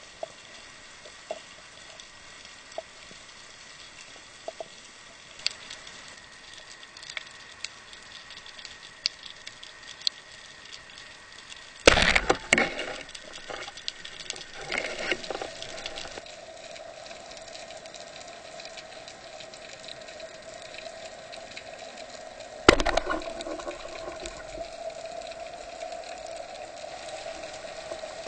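Underwater speargun shot about twelve seconds in: a sharp crack from the released rubber bands, then a brief clatter of the shaft and line. A second sharp knock follows about ten seconds later. Faint scattered clicks run throughout, and a steady hum sets in after the shot.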